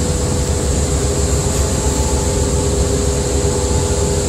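Steady low machinery rumble with a constant hum and hiss over it.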